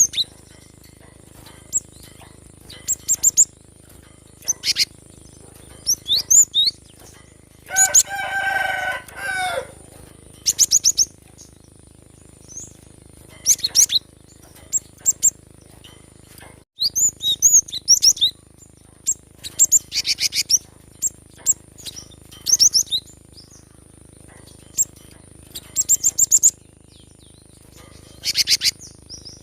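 Cinereous tit (gelatik batu) singing: short bursts of quick, high repeated notes every second or two. About eight seconds in comes one longer, lower and harsher call lasting about a second and a half.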